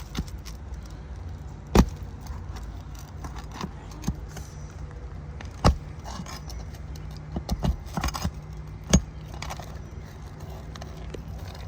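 Sharp metal clicks and taps from a roof snake and nail being worked under asphalt shingles, three loud ones spaced a few seconds apart and a quick run of smaller ones between, over a steady low hum.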